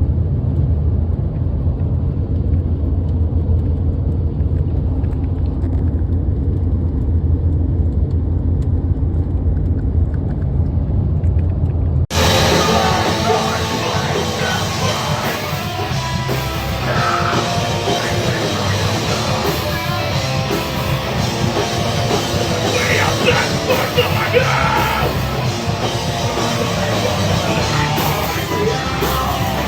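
Loud heavy rock music with drums and guitar. For about the first twelve seconds it is muffled and bass-heavy, then it cuts suddenly to a clearer, full-range mix.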